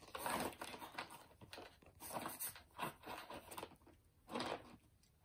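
Pomeranian shifting and turning around inside a cardboard box, its paws and body scraping and rustling against the cardboard in a run of short scuffles.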